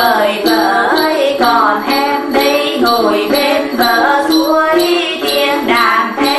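Tày then folk music: đàn tính lutes plucked over a jingling of small bells, with women's voices singing.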